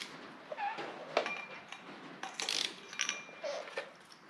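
Scattered metallic clicks and clinks of hand tools, with a ratchet, on the crankshaft pulley bolt of a Toyota 1UZ-FE V8 as the engine is turned over by hand, with a brief faint metal ring now and then.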